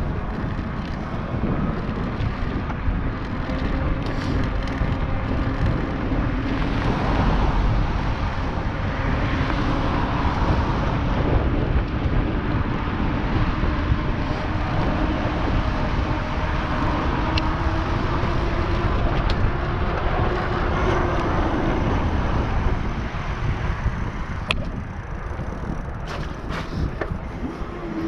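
E-bike ridden over snow: wind buffets the action-camera microphone over tyre noise, with a faint whine that slowly rises and falls in pitch and a few sharp clicks near the end.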